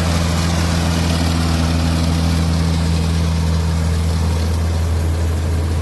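Combine harvester running steadily as it cuts and threshes rice paddy: a constant low engine drone with an even hiss over it.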